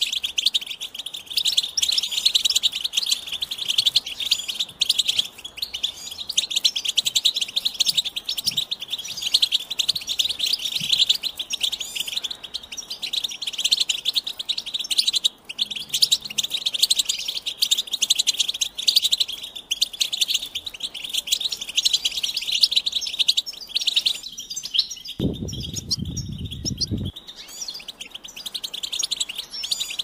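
European goldfinches singing: a dense, fast, high-pitched twittering song that runs without a break. The song thins out for a moment about 24 seconds in, with a brief low rumble under it.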